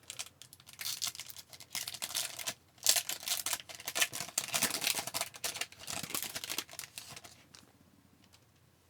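Hockey card pack wrapper being torn open and crinkled by hand, a dense crackling for about seven and a half seconds that dies away near the end.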